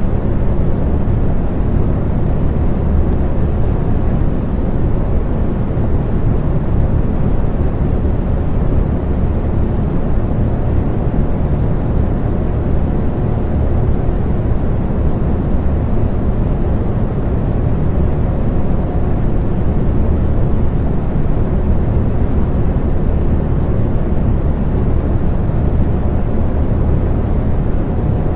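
Electric fan running steadily: a low, even whoosh of moving air with a faint motor hum underneath.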